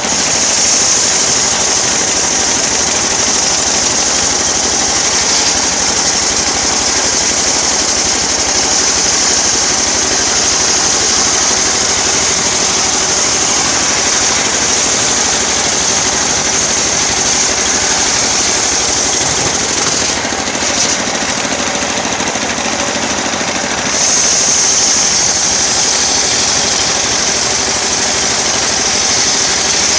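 Engine-driven homemade sawmill saw running steadily while cutting teak wood, with a loud high hissing whine from the blade in the wood. The cutting sound dips briefly about two-thirds of the way in, then grows louder again a few seconds later.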